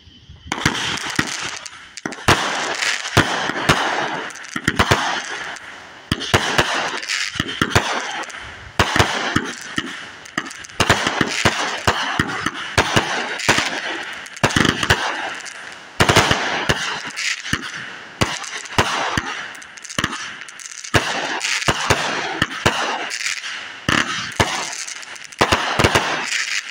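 Multi-shot consumer firework cake firing a long volley: sharp launch and burst bangs about one a second or faster, each trailed by a crackling hiss, starting about half a second in.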